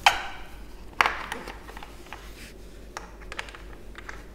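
Clicks and taps of an Allen key and fasteners being undone and a plastic motorcycle side cowling being worked free. Two sharp, ringing clicks come at the start and about a second in, then lighter ticks and rustles.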